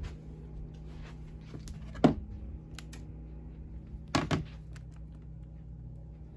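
A single loud thump about two seconds in, then a quick double knock about two seconds later, over a steady low hum.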